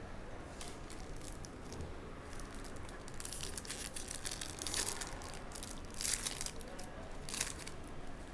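Trading card packaging being opened by hand: crinkly wrapper crumpling and tearing in several short bursts, starting about three seconds in.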